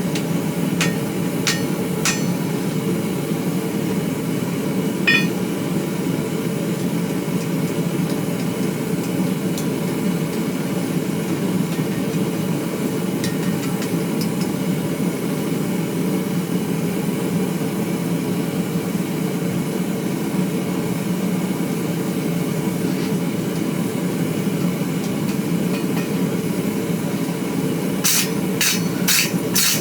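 Blacksmith's hammer striking hot steel on an anvil: a few light metallic clinks at the start, then a quick run of ringing blows near the end, about two or three a second. Under it, a forge runs with a steady, low rushing noise.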